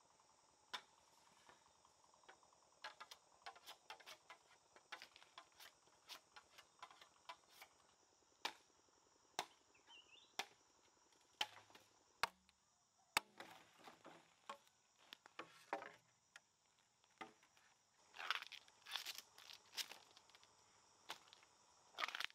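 Scattered sharp snaps and clicks of dry bamboo being handled, with bursts of crackling in the last few seconds as a thin bamboo stem is split apart by hand. A faint steady insect drone sits underneath.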